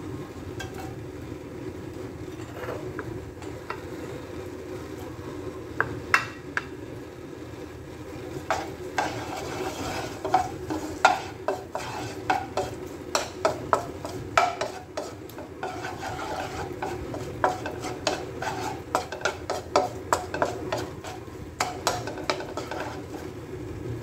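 Wooden spoon stirring chopped garlic in hot oil in a nonstick wok: the garlic sizzles lightly while the spoon scrapes and clacks against the pan, the clacks coming thick and fast from about eight seconds in. A steady low hum runs underneath.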